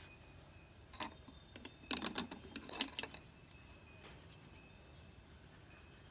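A few sharp light clicks and taps: one about a second in, then two quick clusters around two and three seconds in, from handling the painting gear, a brush and a plastic watercolour palette.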